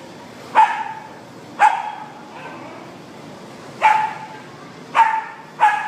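Puppies play-fighting, one giving five short, sharp yips, the last two close together.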